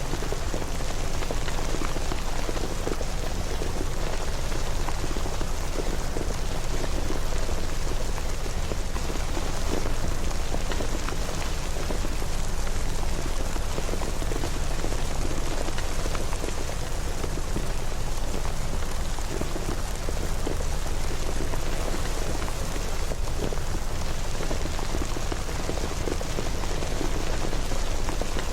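Steady rain falling, with a dense patter of small drops over a steady rushing hiss.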